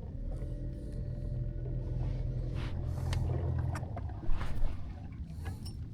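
A boat motor running steadily with a low hum and a faint whine, easing off after about four seconds, with a couple of short knocks near then.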